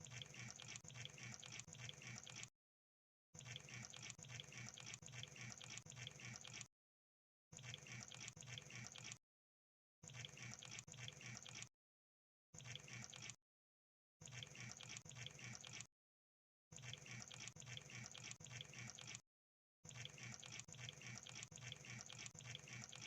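Crab sound effect: rapid, wet-sounding clicking and crackling. It comes in about eight bursts of one to three seconds each, with short dead-silent gaps between them.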